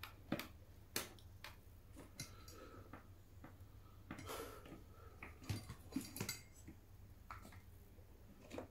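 Light handling noises of small plastic accessories and a USB Type-C cable: scattered sharp clicks and taps, with a short rustle about four seconds in.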